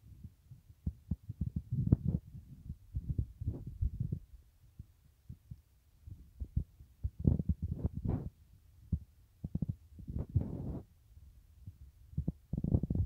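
Wind buffeting a phone's microphone: irregular low rumbling gusts that rise and fall, strongest around two, eight and ten seconds in.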